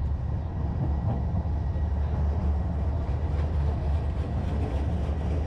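Electric streetcar rolling along the street close by, a steady low rumble under the city noise.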